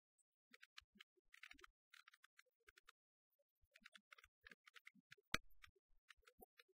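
Near silence with faint, irregular clicks and crackle, and one louder pop about five seconds in.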